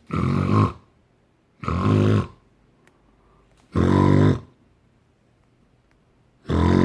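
A man imitating snoring, four short snores about two seconds apart, made at an anti-snoring pillow's built-in microphone to set off its snore detection.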